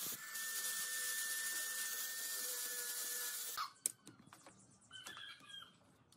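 Angle grinder with a sanding disc running steadily against wood, a steady whine over the sanding noise; it cuts off about three and a half seconds in. After that, a few light knocks of thin wooden slats being handled on a table.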